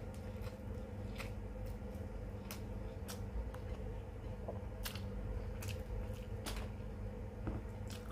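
Mouth sounds of a person eating: irregular sharp wet clicks of chewing and lip smacks, about one a second, over a steady low hum.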